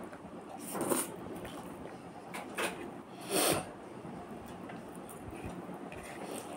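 Quiet eating sounds: chewing a mouthful and fingers mixing rice on a plastic plate, with a few short soft rustles, the clearest about one and three and a half seconds in.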